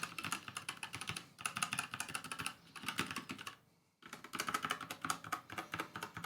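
Typing on a Redragon Draconic K530 60% mechanical keyboard with Redragon brown tactile switches: rapid key clacks in bursts, with a short break about four seconds in before the typing resumes. The sound is clicky to a point, but not super irritating loud.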